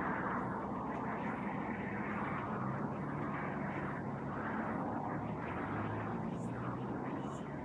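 Steady distant engine drone, with faint high ticks about once a second.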